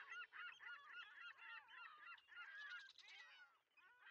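Faint, dense chatter of many birds calling over one another, a flock heard from afar.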